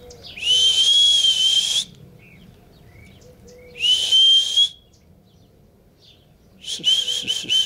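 A person whistling: one long note that slides up and then holds, a shorter note a couple of seconds later, and a quick run of about five short notes near the end.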